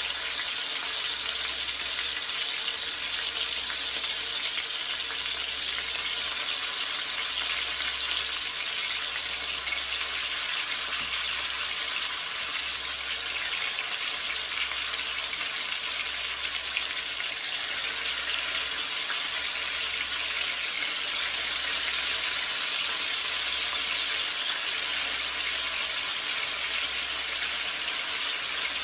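Seasoned chicken back sizzling steadily in hot oil as it browns, the first stage of a brown stew.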